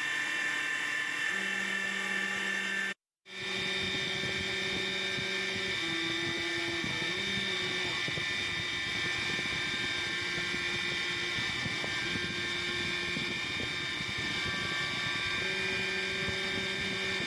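CNC router spindle running at high speed with a steady high whine while cutting a protoboard outline, under lower motor tones that shift in pitch every few seconds as the machine moves. The sound cuts out completely for a moment about three seconds in.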